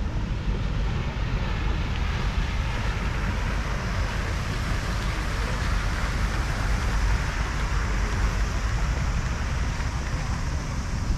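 Wind rumbling on the microphone, with a steady outdoor hiss over it that swells a little around the middle.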